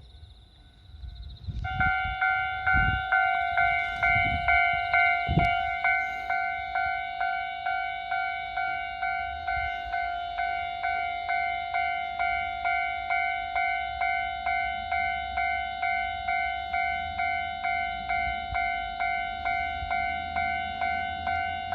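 Japanese railway level crossing warning bell starting up about two seconds in and ringing on in a steady, even ding-ding, about two strikes a second, signalling that a train is approaching.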